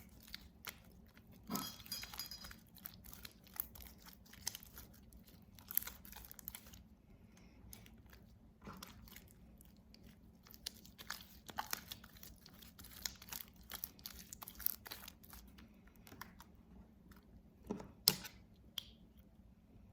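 Sticky glue slime being worked by hand on a tabletop with borax activator: faint, irregular wet squishing and crackling clicks, with a couple of sharper knocks.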